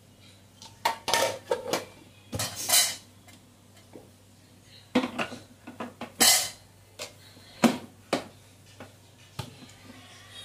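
A stainless-steel mixer-grinder jar full of tomato pieces being handled: a run of metallic clanks and knocks in uneven clusters as the jar is set onto its motor base and the lid is fitted and pressed down.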